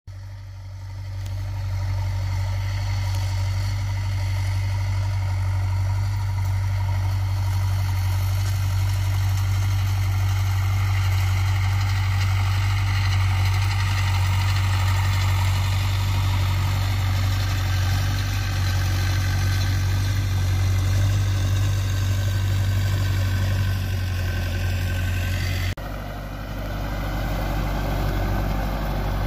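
Zetor 7711 tractor's diesel engine running steadily while pulling a disc harrow through ploughed soil, a strong low hum that grows louder over the first two seconds. About 26 seconds in the sound drops suddenly and changes, then builds again.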